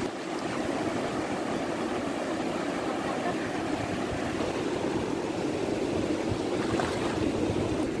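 Sea surf: waves breaking and shallow foamy water washing over the sand, a steady rushing noise.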